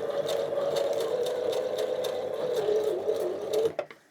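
Electric sewing machine stitching through nylon backpack webbing: the motor runs steadily with the needle stroking in a fast, even rhythm, then stops abruptly near the end.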